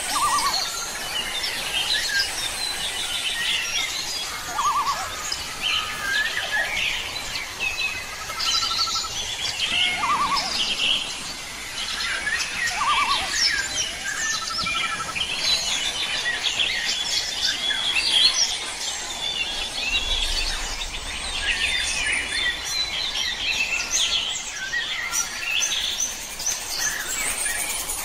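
Many songbirds chirping and singing at once, dense overlapping high chirps with a few lower, rapid trills now and then.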